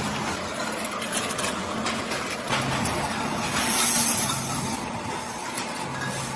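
Factory machinery running: a steady clattering din with repeated knocks.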